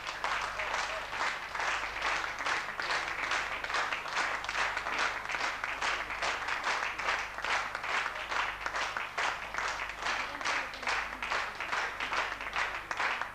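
Audience applauding in a hall, the clapping falling into a steady unison rhythm of about three claps a second.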